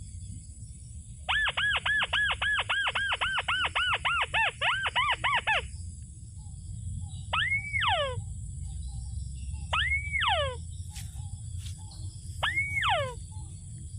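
Rail calls: a rapid run of about twenty arched notes, about five a second, followed by three calls of two falling notes each, spaced about two and a half seconds apart.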